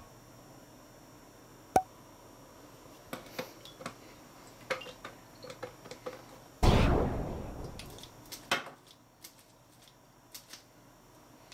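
Ceramic dishes and cups knocking and clinking against each other in a stainless-steel sink, a sharp clink about two seconds in. About seven seconds in comes a louder rush of noise that fades away over a second or so, followed by a few more knocks.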